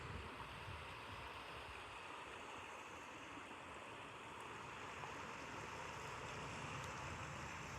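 River water flowing: a steady rushing hiss, with a faint low rumble of wind on the microphone.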